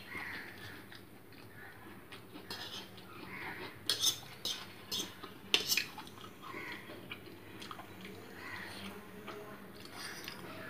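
Metal fork clinking and scraping on a plate of noodles, with a cluster of sharp clinks about four to six seconds in. Soft chewing sounds come in between.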